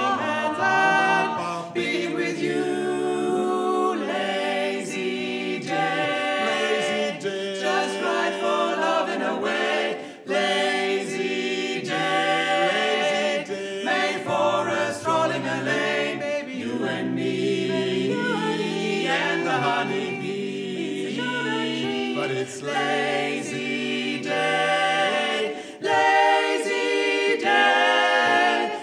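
Barbershop quartet of three women's voices and one man's voice singing a cappella in four-part harmony, held chords moving from one to the next, with brief breaks between phrases about ten seconds in and again near the end.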